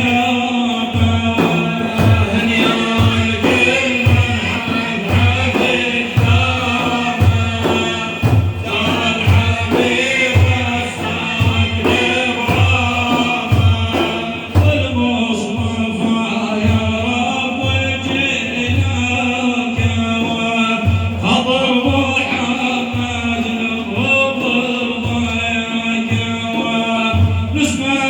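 Madeeh, an Islamic praise song for the Prophet Muhammad, chanted by voices over a steady, regular drum beat.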